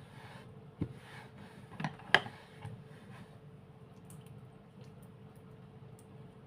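Slime being squished and worked by hand, with a few sharp clicky pops; the loudest pop comes about two seconds in, and it goes quiet after about three seconds.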